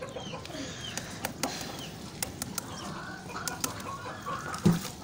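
Chickens clucking, with scattered sharp clicks and a single dull thump near the end.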